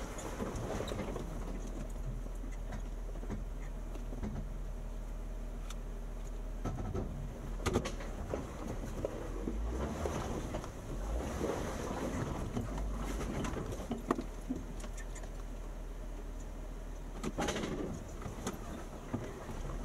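Jeep Wrangler Unlimited (JK) driving, a steady low rumble with a few sharp knocks and rattles from the body and suspension, three of them standing out.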